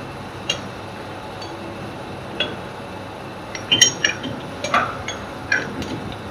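Scattered metallic clinks and light clanks from a multi-spoke chuck handle being turned in a lathe chuck to move the jaws; about half a dozen irregular clicks, the loudest a little past the middle.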